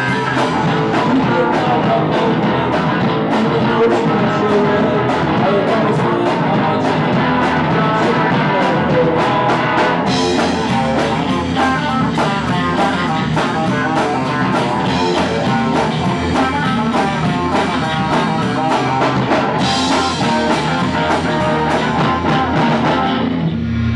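Live rock band playing with electric guitar, bass and drum kit, the drums keeping a steady beat; the cymbals get brighter and louder about ten seconds in.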